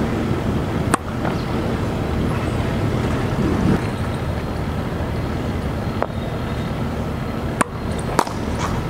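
A tennis racket strikes a ball near the end, and the cricket bat hits it about half a second later: two sharp knocks. A single sharp knock comes about a second in. Under them is a steady outdoor noise, like wind or distant traffic.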